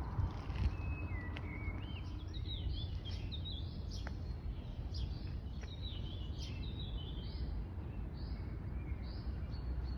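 A small songbird singing a run of short, high whistled notes that slide up and down, starting about a second in and continuing, over a steady low rumble.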